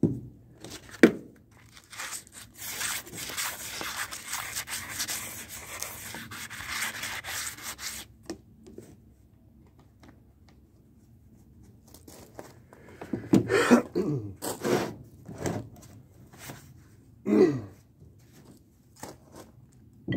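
Rusty cast-iron parts of an old bench vise being handled and refitted: a couple of sharp knocks about a second in, a long stretch of rubbing, then louder metal-on-metal scrapes and knocks in the second half as the round swivel base plate is worked back into place.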